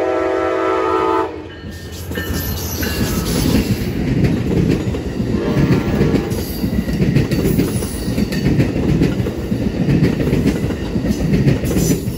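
Amtrak passenger locomotive's horn sounding a chord of several notes, which cuts off about a second in. Then the train runs close past, its wheels rumbling and rattling on the rails.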